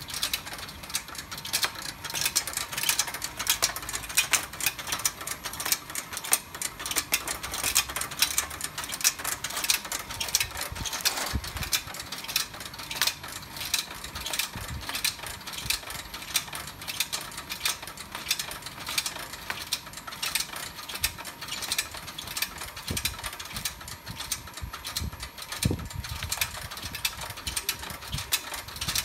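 A Neptunus net-mounting machine running, with a rapid, continuous mechanical clicking as it mounts fishing net onto a rope.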